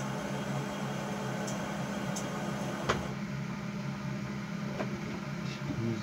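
A steady low hum, with one sharp click about three seconds in and a few faint ticks.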